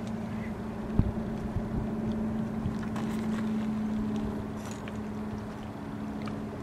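Steady drone of a distant engine, a low hum that swells through the middle and then eases off, with a single sharp knock about a second in.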